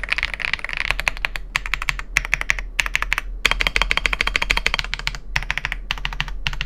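Ajazz AK820 Pro gasket-mount mechanical keyboard with PBT keycaps being typed on quickly: a dense run of key clacks, spacebar presses among them, broken by two short pauses.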